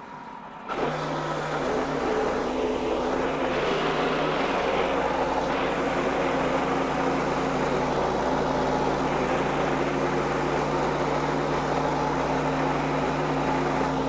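Wood-Mizer LX55 band sawmill running steadily under load, its band blade cutting through a very hard hickory log; the sound comes in abruptly about a second in. The mill is labouring in the dense wood, with the blade wandering and making wavy cuts.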